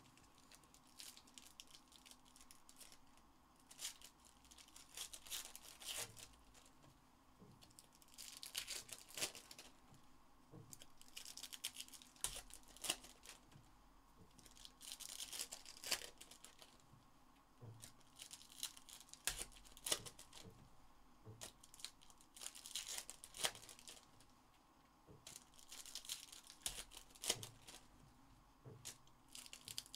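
Trading card packs being torn open by hand, the wrappers tearing and crinkling in short bursts every few seconds, with light clicks in between.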